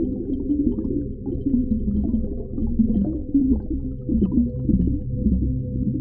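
Muffled deep-ocean underwater ambience: a steady low rumble with gurgling and short, wavering low tones.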